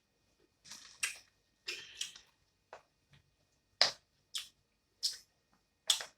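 Close-up mouth sounds of eating: a string of short, wet smacks and clicks as food is chewed, about one every half second.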